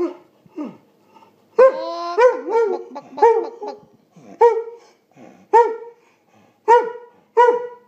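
A dog barking repeatedly, about a dozen short, pitched barks that each rise and fall, with one longer drawn-out note about a second and a half in.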